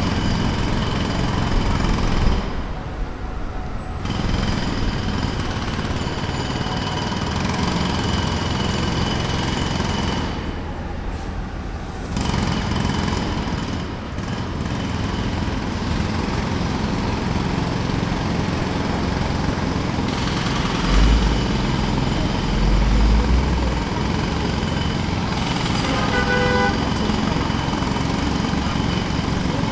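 Pneumatic jackhammer hammering steadily, stopping briefly twice, with a heavy engine rumbling underneath. A short pitched tone sounds near the end.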